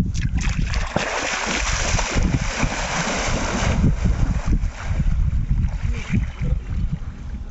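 Water splashing and churning as a person wades quickly into a lake and starts swimming, loudest from about a second in until about four seconds in, then easing as he swims. A low rumble of wind on the microphone runs underneath.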